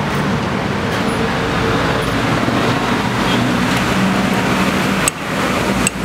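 Steady vehicle noise with a low hum, dropping out briefly twice near the end.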